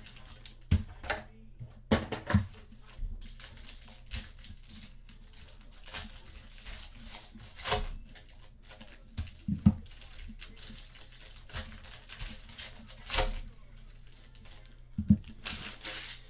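Trading card packs being torn open, their wrappers crinkling, with cards tapping and sliding as they are handled: a run of irregular rustles and taps.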